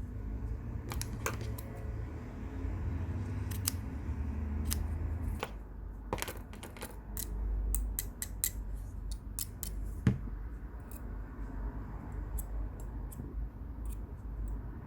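Small, light metallic clicks and taps from tools and parts being handled while building a rebuildable dripping atomizer, coming in irregular clusters with one louder knock about ten seconds in.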